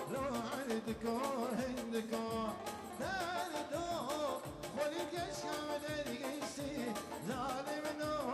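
Kurdish folk dance music for a line dance: singing over a steady beat, the melody bending and winding with ornaments.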